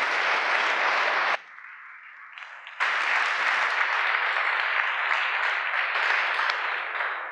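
Audience applauding. The clapping breaks off abruptly after about a second and a half, comes back just as abruptly over a second later, and fades away near the end.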